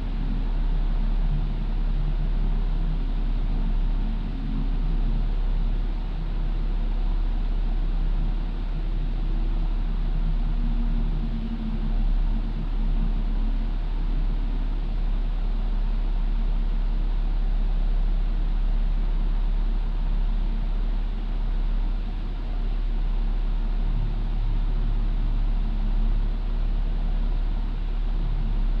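2000 Toyota 4Runner engine idling steadily through a Flowmaster Super 40 series exhaust, a deep even rumble.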